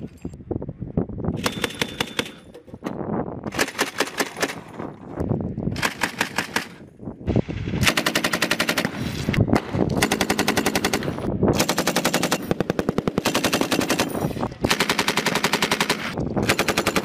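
Belt-fed machine guns firing bursts of automatic fire. There are three short bursts about two seconds apart, then from about eight seconds in, longer bursts of a second or more follow one another with only brief pauses.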